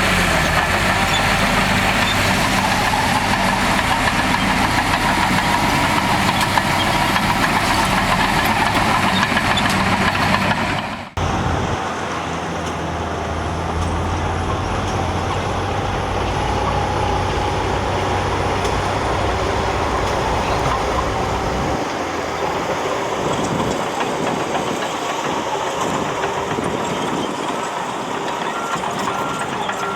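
Engines of heavy earthmoving machines running steadily at work. The sound changes abruptly about eleven seconds in, and a reversing alarm starts beeping near the end.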